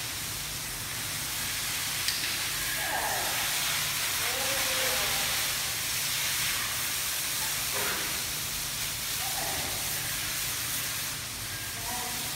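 Water spraying from a hose onto an elephant's back, a steady hiss that swells for a few seconds in the middle.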